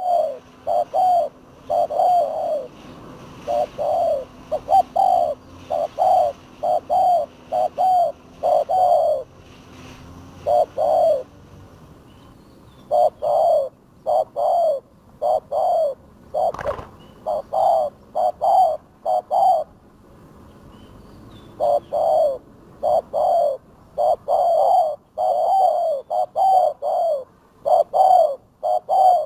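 Spotted doves cooing: short low coos repeated in phrases, with two breaks of a second or two, one before the middle and one later. A single sharp knock sounds about seventeen seconds in.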